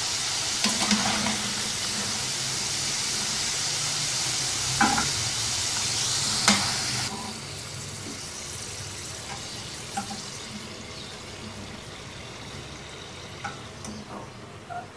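French fries sizzling in hot oil in a pan, with a slotted metal spatula stirring and scraping against the pan and a couple of sharp clicks. About seven seconds in, the sizzle drops suddenly to a fainter hiss with a few light taps of the spatula.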